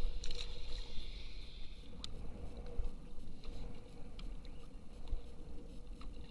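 Water lapping against a kayak's hull and wind rumbling on the microphone, with a few faint scattered clicks.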